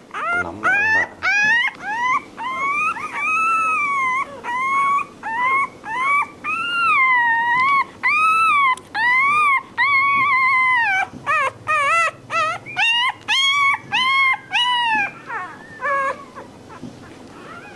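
Newborn Rottweiler puppy crying: a long run of high-pitched whimpering cries, short and quick at first, then longer whines that rise and fall in pitch, then short quick cries again, fading out near the end.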